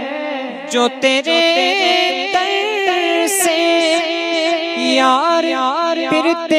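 Male voice singing a naat in long, wavering ornamented phrases, without clear words.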